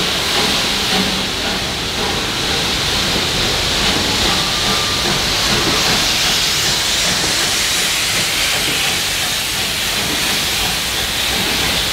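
Steam locomotive letting off steam with a steady, continuous hiss.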